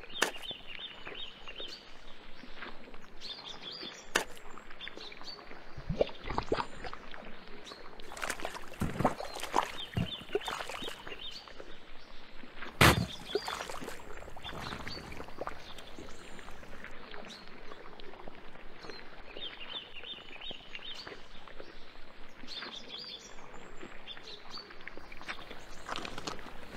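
Forest ambience with birds chirping in short repeated phrases. Occasional wet squelches and blorps from quicksand as it swallows a sinking body, the loudest about 13 seconds in.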